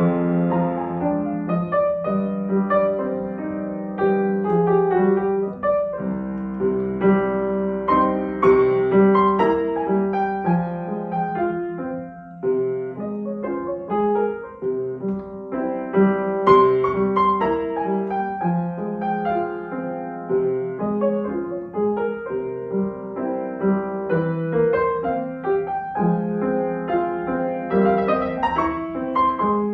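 Upright piano played solo: a classical piece with many notes in steady succession. Loudness dips briefly about twelve seconds in.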